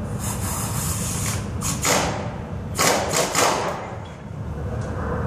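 Several short bursts of knocking and rattling as parts of a Daewoo forklift are worked on by hand during dismantling. The loudest come about two seconds in and again about three seconds in, over a steady low rumble.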